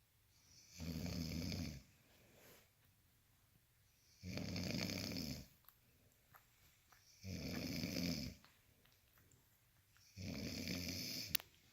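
Snoring in slow, even breaths: four snores, each about a second long, coming about every three seconds. A single sharp click near the end.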